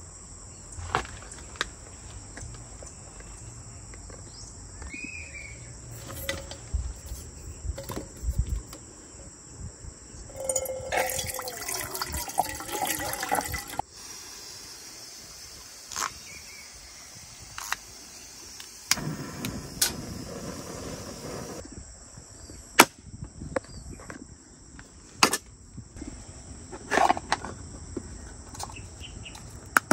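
Insects chirring steadily in a high, even drone, over scattered clicks and knocks of camp gear being handled. About ten seconds in, water pours for a few seconds, and there is another brief rush of noise near the twenty-second mark.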